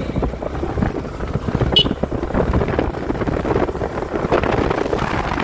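Wind buffeting the microphone while riding a Yamaha R15 V4 motorcycle, with its 155 cc single-cylinder engine running at speed underneath. A brief high chirp comes about two seconds in.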